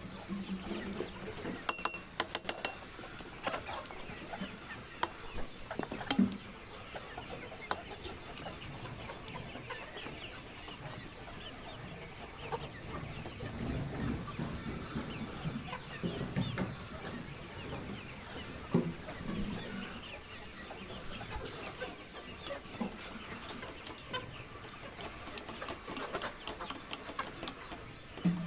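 A flock of chickens clucking and calling continuously, with scattered clicks and knocks and a rooster crowing now and then.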